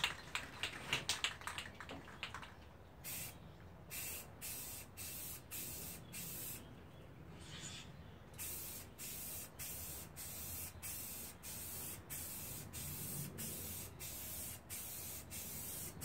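Aerosol can of primer rattling as it is shaken, then spraying in a string of short hissing bursts, about two a second, with a brief pause partway through.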